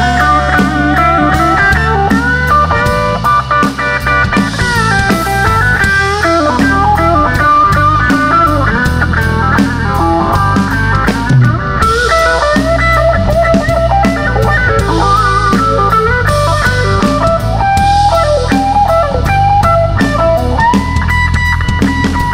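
Live blues-rock band in an instrumental break: an electric guitar solo of bent and moving notes over electric bass and drum kit, ending on a long held note.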